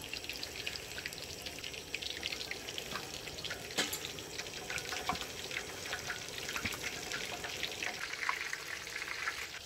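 Hot oil sizzling and crackling with dense popping as breaded pork cutlets deep-fry in a pot, with a few sharper clicks among the crackle.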